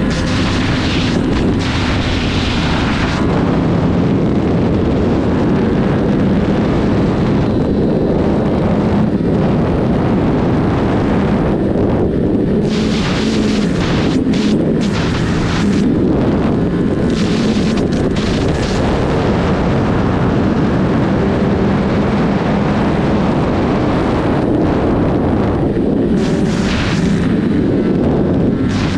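Sport motorcycle engine running hard at highway speed, its note shifting slightly, under heavy wind rush on the microphone that swells in several surges.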